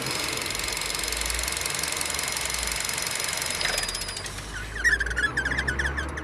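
Vauxhall Astra 1.4 turbo engine running with a steady high-pitched squeal, which the owner suspects comes from a faulty engine pulley. The squeal stops a little over halfway through, and near the end there is a louder run of rapid chirps.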